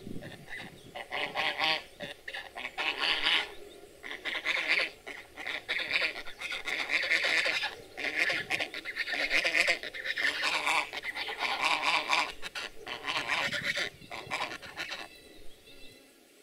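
White domestic geese honking over and over, harsh calls packed close together, falling quiet near the end.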